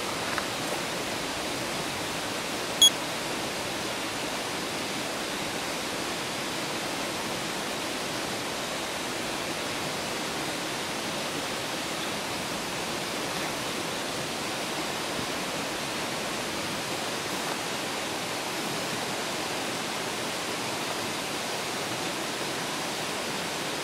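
Steady rushing of a river flowing past, an even hiss of water. A single brief, high clink about three seconds in.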